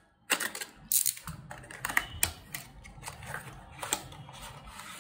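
Cardboard packaging being handled and opened: the seal on a small charger box is cut and the inner tray slides out of its paper sleeve, giving a run of irregular crackles and sharp clicks.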